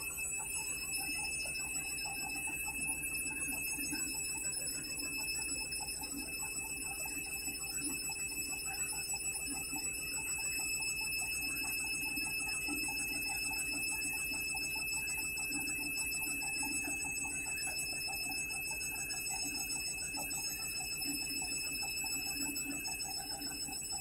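Candy Smart Touch washing machine spinning its drum on the delicate spin at about 400 rpm: a rapid, even pulsing with a steady high whine over it.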